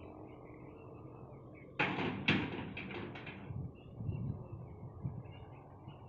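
Railway level-crossing boom barriers being lowered: a sudden metallic clatter about two seconds in, followed by a few more clanks over the next second and a half as the booms come to rest.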